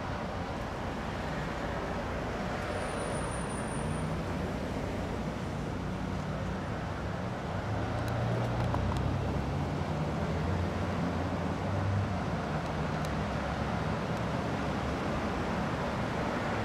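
Steady road traffic noise: a low rumble under an even hiss, growing a little louder around the middle.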